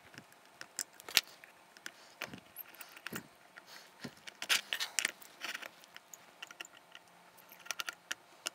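Irregular small clicks and scrapes of a small flathead screwdriver backing screws out of the weight on a model locomotive's chassis, with the metal parts handled between turns. The sharpest click is about a second in, and a cluster of clicks comes around the middle.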